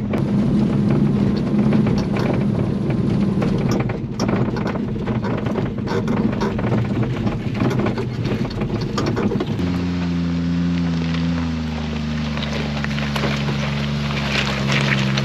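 Inside the cab of a 1991 Honda Acty kei truck: its small three-cylinder engine drones while the cab rattles and knocks over rough river rock, a bumpy ride. About ten seconds in this gives way to a few steady held low tones, with gravel crunching near the end.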